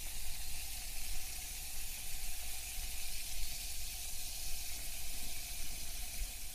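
Water running steadily from a tap left fully on: an even hiss of flowing water with a low rumble beneath.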